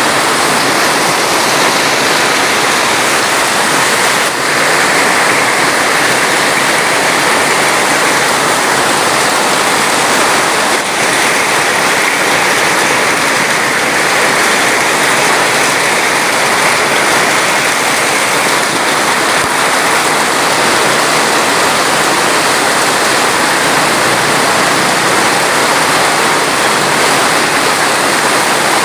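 Steady, loud rushing of water, an unbroken hiss without drips or splashes standing out.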